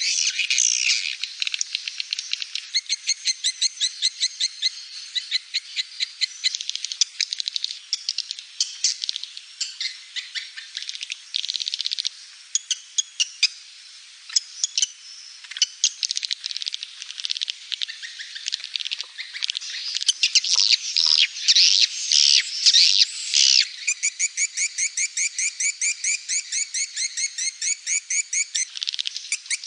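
Swiftlets twittering in fast, dense chirps and trills: a swiftlet lure call recording. Near the end the chirps settle into an even rhythm of about three a second.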